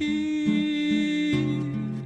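Music: a singer holds one long note over a plucked-string accompaniment, with a low note about twice a second.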